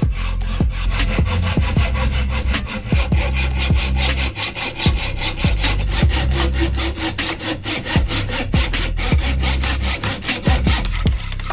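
Hacksaw cutting through the aluminium steerer tube of a new Rockshox Lyrik fork held in a saw guide, in quick even back-and-forth strokes, about four a second.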